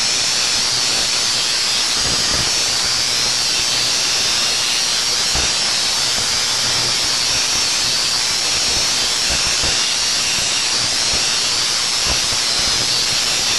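Homemade Tesla coil with a conical secondary and water-bottle capacitors firing, its streamer sparks arcing from the round top load to nearby objects: a loud, steady, hissing spark discharge.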